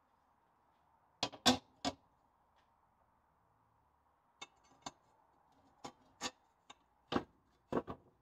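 Painted steel leaf-spring leaves being laid on one another on a wooden workbench, giving a series of short, sharp knocks and clinks: three in quick succession about a second in, then scattered single knocks through the rest.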